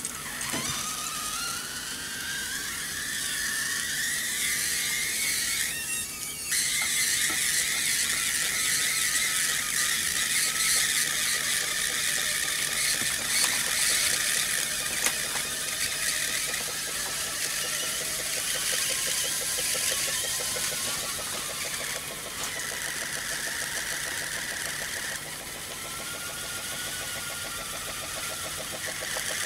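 Steam jetting from the copper nozzles of a brass Hero's engine (aeolipile) as the sphere spins: a steady hiss with a whistling tone that rises in pitch over the first few seconds, then wavers up and down.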